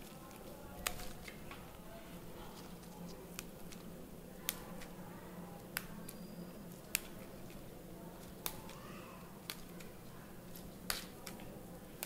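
Gongura (sorrel) leaves being snapped off their stalks by hand. About ten faint, sharp snaps come at irregular intervals of roughly a second.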